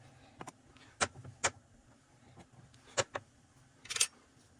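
A handful of sharp, uneven clicks and taps of hand tools and small metal parts being handled during a chainsaw teardown.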